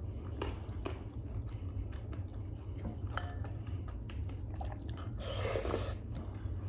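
Close-miked chewing of freekeh and beef: soft wet mouth clicks, with a louder bite about five seconds in, over a steady low hum.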